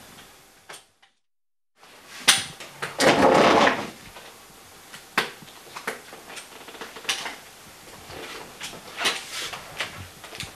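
Scattered knocks and clicks in a small room from a door and a man walking on forearm crutches, with one louder noisy scrape lasting under a second, about three seconds in. The sound drops to dead silence briefly about a second in.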